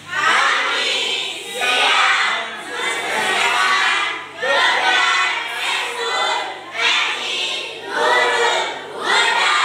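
A group of children's voices singing out together in unison, in short loud phrases about a second apart.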